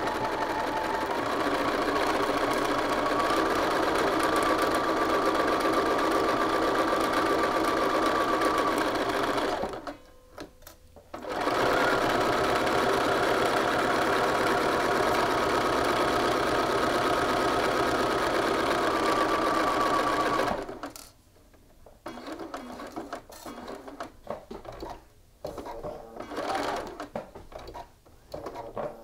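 Bernina sewing machine stitching at a steady speed in two long runs. The runs are broken by a short pause about ten seconds in, as the fabric is repositioned. The stitching stops about two-thirds of the way through, leaving soft irregular clicks and rustles of the fabric being handled.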